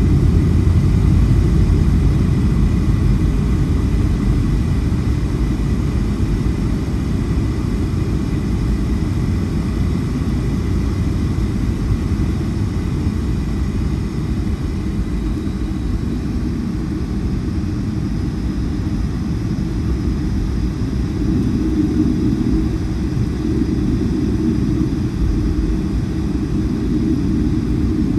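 Steady low rumble of a Boeing 757-300 in motion, its Rolls-Royce RB211 engines running, heard from inside the cabin, with a faint high whine that fades about halfway through.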